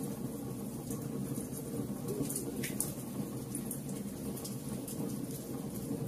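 Wood fire burning in a fireplace: a steady low rumble of flames with scattered sharp crackles and pops from the logs, one sharper crack a little under three seconds in.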